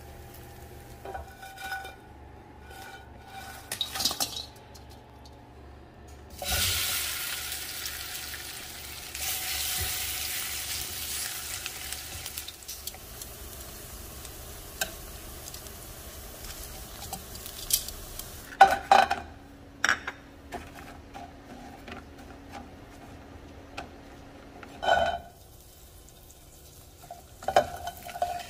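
Bread slices, plantain slices and raisins frying in oil in a nonstick skillet over medium heat. Light clicks as the pieces are handled, then a loud sizzle starts suddenly about six seconds in and settles to a quieter steady sizzle. Sharp knocks of a utensil on the pan come twice, and a wooden spoon stirs near the end.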